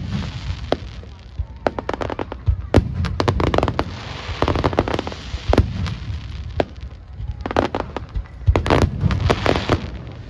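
Aerial fireworks bursting in quick succession: sharp bangs and crackles over a continuous low rumble of booms, with dense volleys about three seconds in and again near the end.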